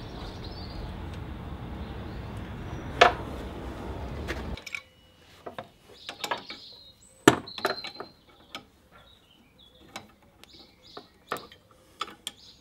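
Steel spanners clinking and tapping against a metal hose adapter fitting as it is set in place and tightened: a dozen or so short sharp clinks, the loudest about seven seconds in. Before that, a steady low background noise with one sharp knock, which cuts off abruptly about four and a half seconds in.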